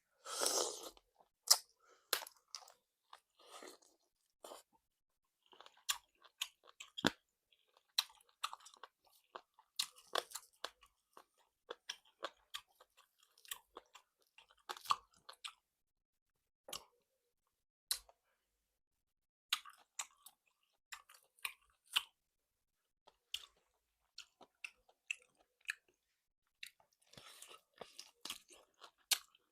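Close-up chewing of salt-baked chicken: a run of irregular wet mouth clicks and crunches, after a short breathy burst at the start.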